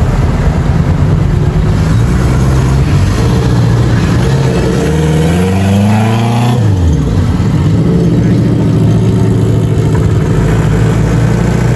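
Vehicle engines running as traffic drives past on the road. One vehicle revs up with rising pitch and passes close about six seconds in, its pitch dropping sharply as it goes by.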